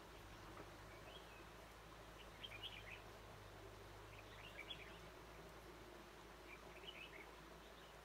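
Red-whiskered bulbul calling faintly, four short chirpy phrases spaced about two seconds apart, over a low steady hum.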